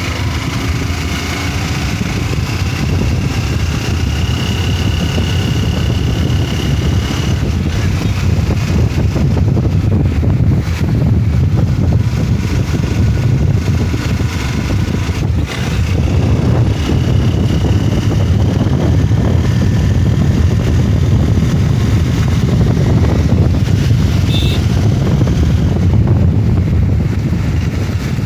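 Motorcycle engine running steadily on the move, with heavy wind rumble on the microphone.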